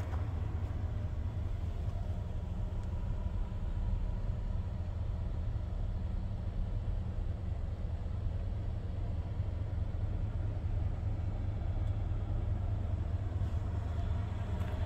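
The engine of a 2003 Chevrolet 2500 truck idling steadily, a low even rumble heard from inside the cab.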